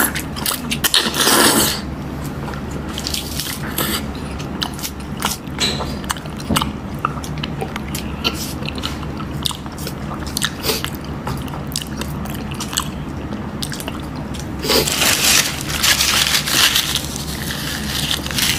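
Close-miked eating: biting, crunching and chewing with many small wet clicks, and louder crunching near the start and again from about 15 seconds in. A steady low hum runs underneath.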